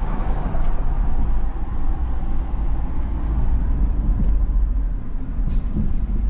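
Steady low rumble of engine and road noise from a car being driven, heard inside the cabin.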